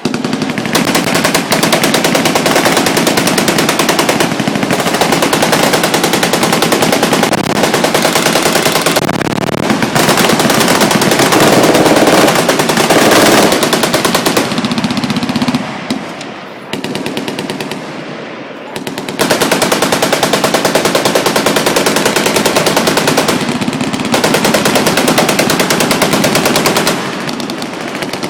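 Machine guns firing long, nearly unbroken full-auto bursts, with a brief slackening about two-thirds of the way through before heavy firing picks up again.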